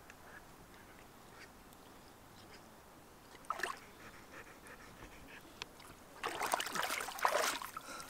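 Dog wading in shallow river water at the bank, the water quietly lapping, with a short splash about halfway through. In the last two seconds comes a loud burst of splashing and sloshing as the dog plunges its head into the water.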